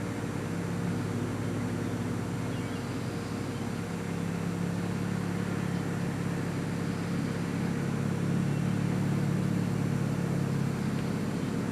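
Steady low rumble of a running vehicle, with no clear starts or stops.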